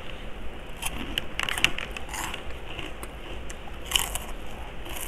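Crisp crunching of chicharon being bitten and chewed, heard close up in a few crackly bursts, the sharpest about four seconds in.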